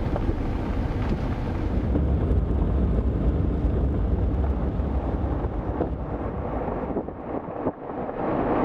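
Road and engine noise inside a moving Jeep SUV's cabin: a steady low rumble with some wind noise, dipping briefly about seven seconds in.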